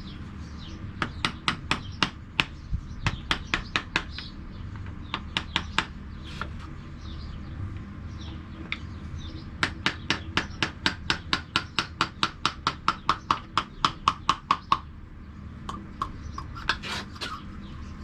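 Sharp, light metallic taps on metal parts during reassembly of an outboard's hydraulic trim cylinder. They come in irregular clusters, then in a steady run of about five a second for some five seconds, each with a short ring.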